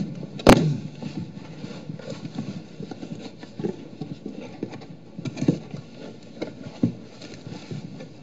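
A dog playing with an empty cardboard box on the floor: one sharp knock about half a second in, then scattered lighter taps and thumps as the box is pushed about.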